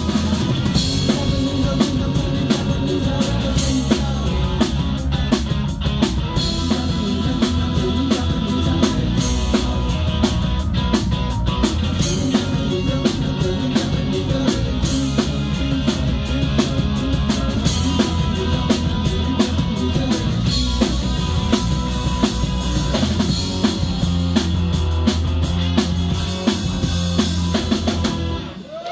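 Live rock band playing: drum kit and electric guitars at full volume, with a steady driving beat, cutting off suddenly just before the end as the song finishes.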